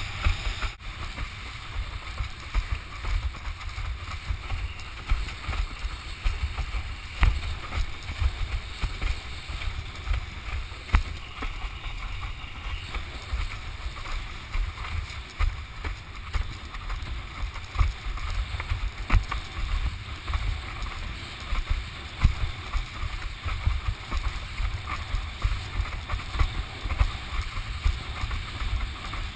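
Wind buffeting a small action camera's microphone during windsurfing, a gusty rumble over the steady hiss of water rushing past the board. A few faint knocks come through now and then.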